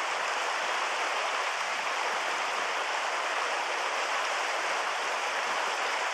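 Steady rush of a shallow mountain river running over rocks and stones.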